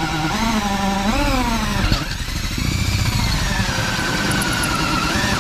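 DeWalt cordless drill running, boring a small pilot hole through a fiberglass boat hull. The motor's whine wavers in pitch at first, then drops gradually as the bit cuts.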